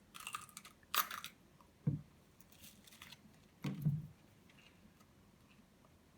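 Handling noises while making a sandwich: short crinkly rustles and two dull thumps.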